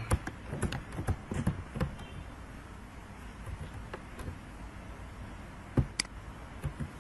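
Scattered clicks and light knocks from handling at a computer desk, most of them in the first two seconds, over a low steady hiss; two sharp mouse clicks come close together a little before the end.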